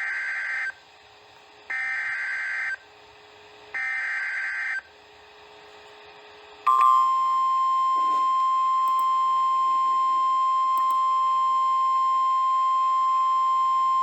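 Three EAS SAME header data bursts from a NOAA Weather Radio broadcast, each a raspy digital warble about a second long and a second apart, announcing a new alert. About two seconds after the last burst, the steady 1050 Hz weather-radio warning alarm tone starts and holds.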